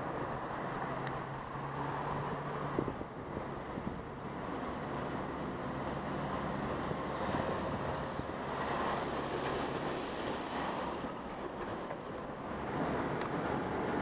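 City street traffic at an intersection: a low steady engine hum from nearby vehicles over general road noise, with wind on the microphone.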